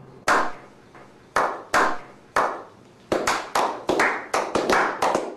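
A slow clap: single hand claps about a second apart, then more hands join and the clapping quickens from about three seconds in, each clap ringing out briefly.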